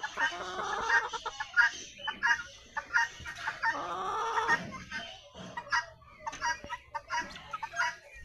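A flock of chickens clucking and calling, many short overlapping calls with a few longer drawn-out calls about one and four seconds in; the sound cuts off abruptly at the end.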